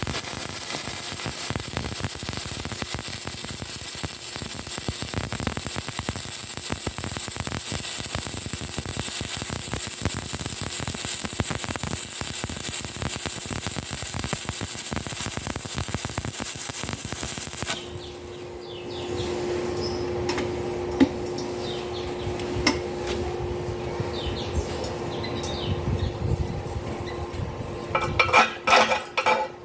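Stick (SMAW) arc welding with an E6013 electrode: the arc crackles and sputters steadily, then stops abruptly after about eighteen seconds. What follows is a quieter steady hum with scattered light clinks.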